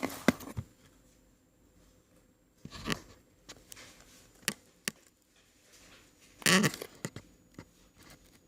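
Scattered sharp clicks and short rustles of something being handled, with the longest rustle about two-thirds of the way through; a faint steady high whine sits underneath.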